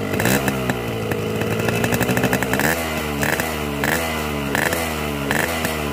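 Hot two-stroke motorcycle engine, running through a Boban C33 exhaust, revved up once at the start and held at a raised speed. From about halfway it is blipped five times in quick surges, each rising and falling back.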